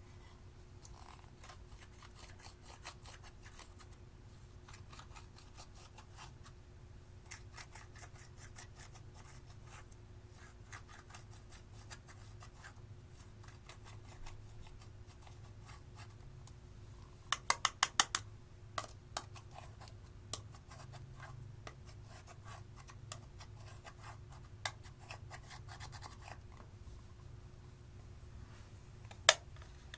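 Slime being worked by hand with eyeshadow mixed in, giving trains of small crackling clicks and pops. A little past halfway comes a quick burst of about five louder pops, and there is one sharp pop near the end, over a faint steady hum.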